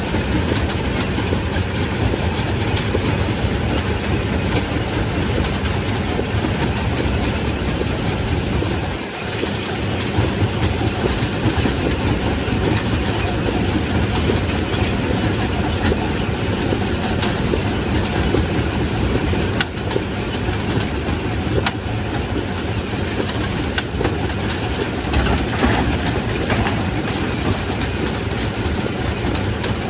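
Quarry primary rock crusher running under load: a steady heavy rumble of machinery and grinding rock, with occasional sharp knocks as stone breaks and a brief lull about nine seconds in.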